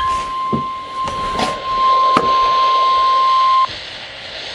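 NOAA Weather Radio warning alarm tone, a single steady high beep heard through a Midland WR-100 weather radio's speaker, cutting off abruptly about three and a half seconds in and leaving faint radio hiss; the tone signals that a warning broadcast follows. A few short clicks sound over the tone.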